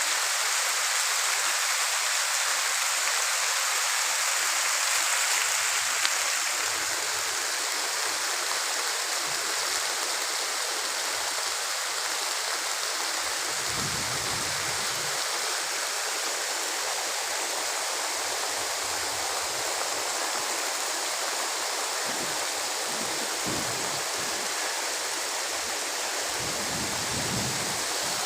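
Heavy rain pouring down steadily, an even, unbroken hiss of falling water.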